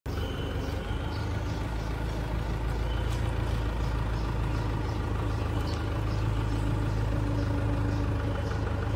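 Mini tractor engine running steadily at a constant speed.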